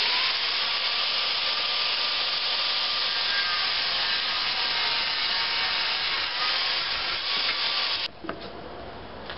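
Electric angle grinder with a cut-off disc cutting through flat steel strap: a steady, loud grinding hiss with a faint motor whine beneath it. It stops abruptly about eight seconds in.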